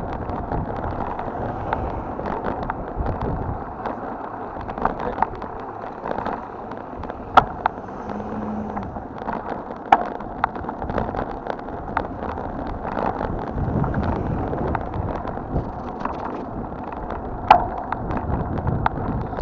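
Ride noise from a bicycle rolling on asphalt: wind on the microphone and tyre rumble, with frequent small rattles and clicks from bumps in the road. Three sharper knocks stand out, the loudest near the end.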